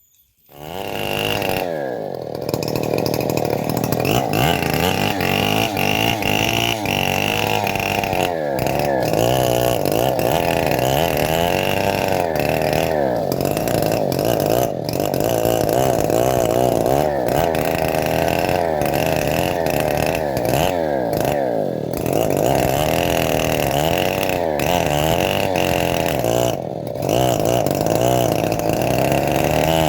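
Homemade bandsaw mill running and sawing through a teak log. It comes in suddenly and keeps on loud, the motor pitch wavering up and down as the blade works under load. There is a brief dip near the end.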